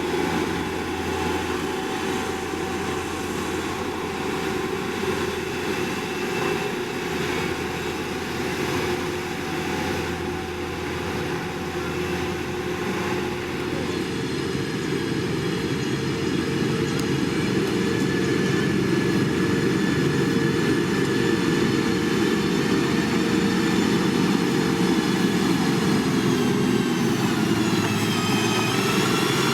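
Diesel engine of heavy road-building machinery running steadily, growing a little louder about halfway through, with its pitch dipping and then climbing again near the end.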